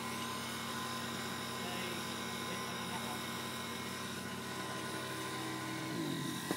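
Ford Escort's engine idling steadily.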